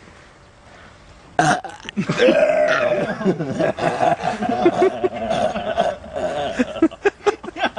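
A man's long, drawn-out belch that starts about a second and a half in and holds a steady pitch for roughly four seconds, then breaks into shorter choppy bursts.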